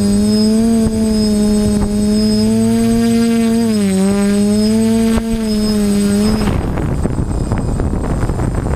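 TBS Discovery quadcopter's electric motors and propellers humming loudly, the pitch dipping slightly a few times with throttle, then cutting off abruptly about six seconds in, leaving a rough, rustling noise.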